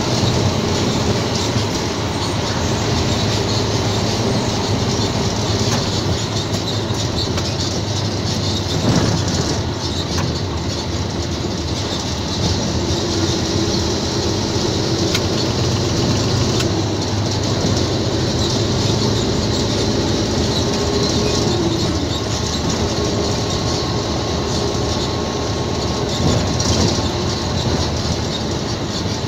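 Inside the cab of a heavily loaded Isuzu GXZ tractor-trailer on the move: the diesel engine runs at a steady drone, with scattered knocks and rattles from the cab and rig.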